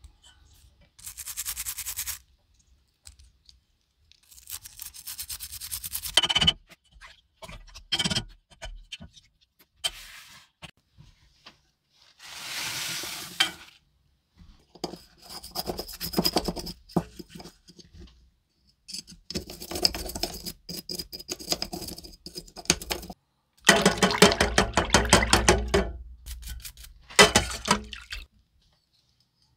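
A toothbrush scrubbing a bare-metal diecast toy car body and baseplate in soapy water, in several separate bursts of quick back-and-forth strokes, the longest and loudest near the end.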